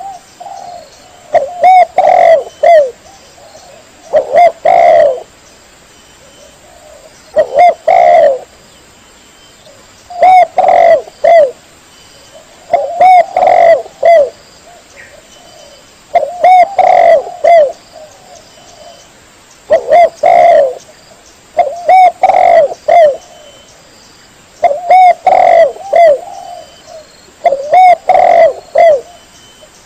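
Spotted dove (tekukur) cooing: loud phrases of several short low coos, repeated about every three seconds.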